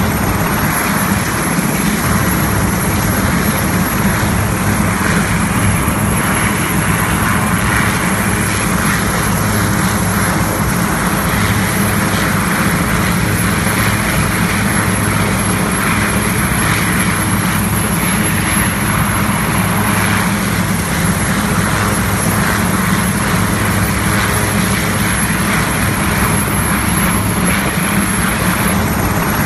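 Navy Sea King helicopter running on the ground, its turbine engines and rotor making a loud, steady din.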